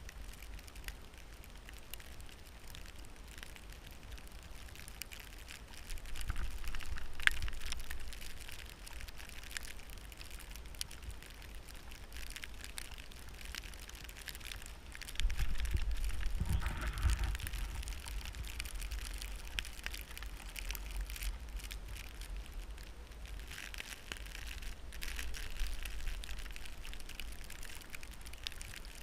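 Wind buffeting the microphone in gusts, about 6 and 15 seconds in, over a crackling, hissing scrape of a snowboard sliding over snow.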